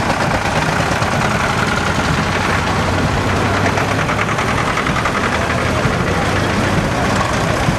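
Vintage diesel tractor engines running at low speed as the tractors drive slowly past close by, with an even, rapid engine beat.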